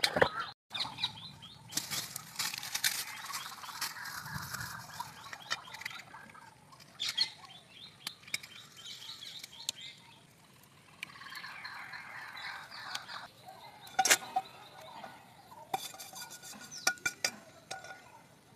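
Scattered clinks and knocks of metal cooking utensils being handled, with birds chirping in the background.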